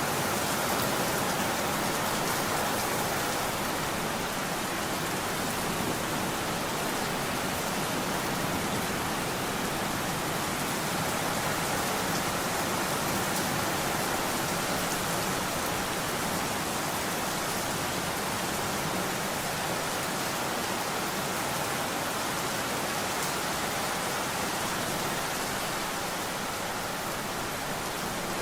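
Steady rain falling, an even, unbroken hiss that holds at one level throughout.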